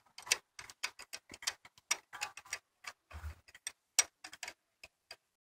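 Ratchet clicking in quick, irregular strokes as a spark plug is turned back in by a socket on a long extension; the clicks stop shortly before the end.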